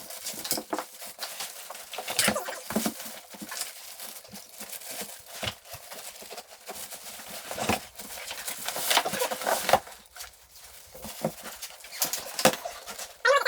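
Irregular light clicks, taps and knocks, scattered unevenly with no steady rhythm.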